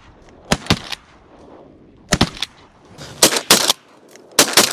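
Shotgun blasts fired at ducks: about eight sharp shots in quick pairs spread through the few seconds.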